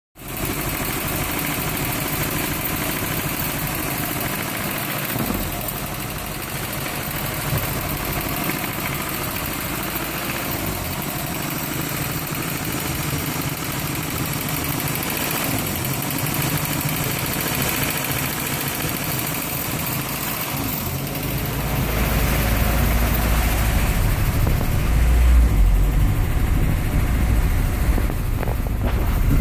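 Nissan 240SX's KA24E 2.4-litre four-cylinder engine idling roughly. A deeper, louder low rumble comes in about three-quarters of the way through.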